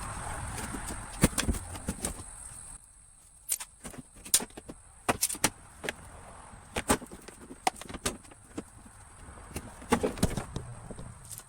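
Scattered sharp clicks and knocks, irregular and spread throughout, from hand tools and the plastic wheel-well liner being worked loose and pulled out of a pickup's fender.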